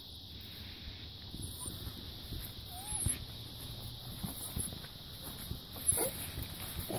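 Quiet outdoor ambience: a low rumble with a low hum that fades out about four seconds in, and a few faint short squeaks and ticks, among them a small chirp near the middle.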